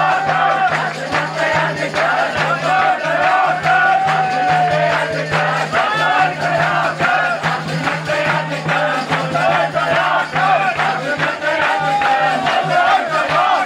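Crowd of Hindu devotees singing a devotional song together and clapping their hands in time, over a steady low hum.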